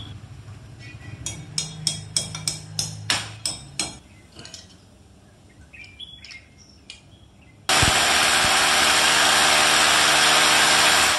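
About ten sharp knocks in quick succession over a low hum. Then, about eight seconds in, a loud steady motor noise starts suddenly.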